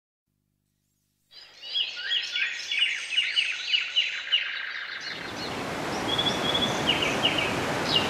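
Birds singing in quick repeated chirps, about three a second, over a steady rush of water; it starts after about a second of silence. About five seconds in, the fuller, louder rush of a large waterfall takes over, with a few bird calls still above it.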